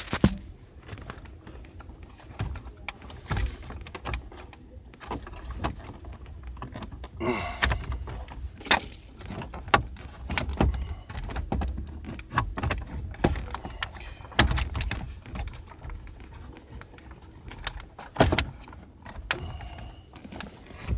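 Scattered clicks, knocks and rattles of hands and tools working the plastic instrument panel housing of a 1987 Mazda RX-7 loose, with a short rustle about seven seconds in.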